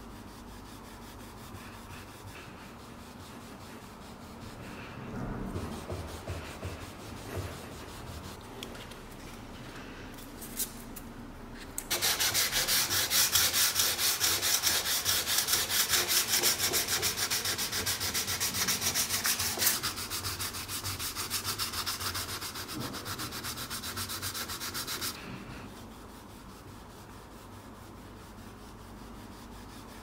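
Wooden base of an antique coffee grinder being hand-sanded with sandpaper: a loud middle stretch of rapid, even back-and-forth scratching strokes. Before and after it, quieter, uneven rubbing of steel wool over the wood.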